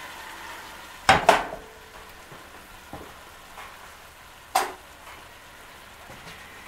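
Shredded chicken sizzling steadily in a hot pan with broth just poured in, broken by two sharp knocks in quick succession about a second in and another a little past halfway.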